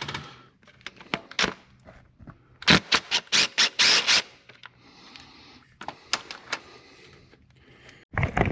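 Hand tools and metal engine parts clicking, knocking and scraping as the thermostat and its coolant pipe are worked free, with a run of loud, quick clicks about three seconds in.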